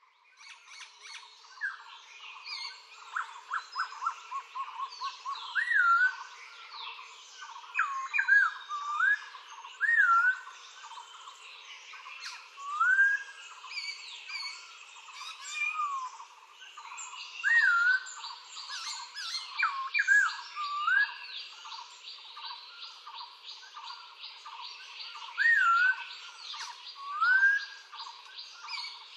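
Recorded birdsong: several birds singing, one of them repeating short whistled notes that swoop up and down every few seconds. From about halfway through, a fast high trill runs steadily behind them.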